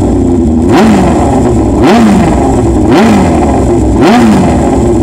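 Air-cooled inline-four engine of the #19 Honda CB750F racer, blipped hard over and over, the revs rising sharply and dropping back about once a second.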